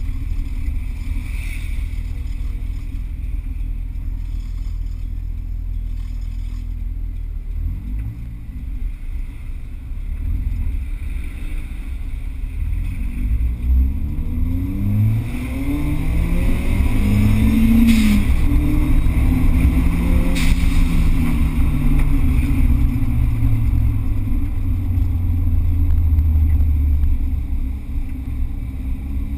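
Small car's engine heard from inside the cabin while driving: a low steady drone at first, then the engine pitch climbs as the car accelerates, breaks off at a gear change about 18 seconds in, rises briefly again and slowly falls away.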